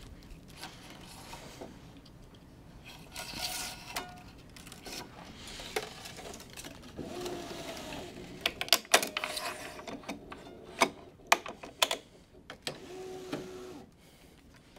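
Racquet stringing machine at work: the electric tension head's motor whirs briefly a few times as it pulls a string to tension. Sharp clicks and snaps of the string clamps and the string being handled come in a cluster in the second half and are the loudest sounds.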